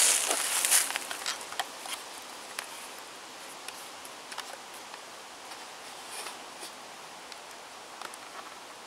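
Rustling through dry leaf litter that stops less than a second in, followed by quiet woodland background: a steady faint hiss with scattered small ticks and rustles.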